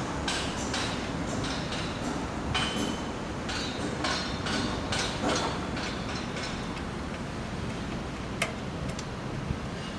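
Irregular clicks and light clatter of hand work with tools and small parts on a bicycle, over a steady low rumble, with one sharp click about eight and a half seconds in.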